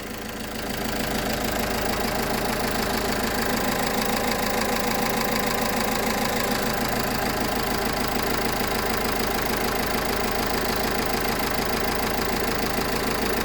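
Car engine idling steadily with the knock that the owner hears after revving. His scanner shows a high-pressure circuit fault, the circuit reading its maximum value.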